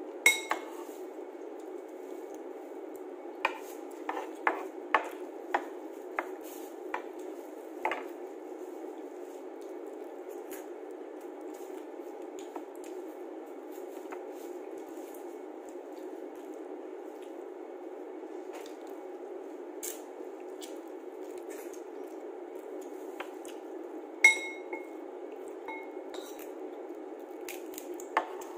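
Crab and shrimp shells being cracked and peeled by hand. A run of sharp clicks comes a few seconds in, with a few more later, and two of the clicks ring briefly like a clink against a dish. Under them is a steady low hum.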